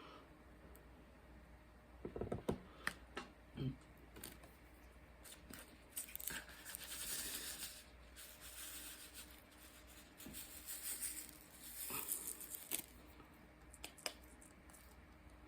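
Small crafting handling sounds at a canvas: a few light clicks and knocks, then two stretches of crinkly rustling and rubbing, as of plastic film or paper being handled.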